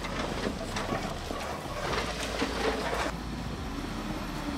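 Off-road 4x4 engine working under throttle, with a scatter of knocks and clatters from the vehicle on rough ground that ease off about three seconds in.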